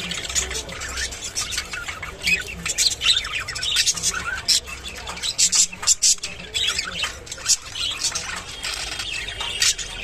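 Budgerigars chirping and chattering: a busy, unbroken run of short high chirps and squawks.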